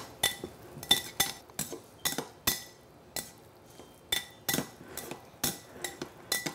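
Metal tongs clinking against a ceramic mixing bowl while tossing an orzo salad: irregular clinks, two or three a second, each with a brief ring.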